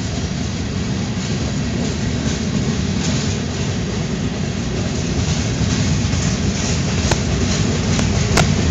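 Freight train of boxcars and covered hopper cars rolling past at close range: a steady rumble of steel wheels on the rails, with a few sharp clicks near the end.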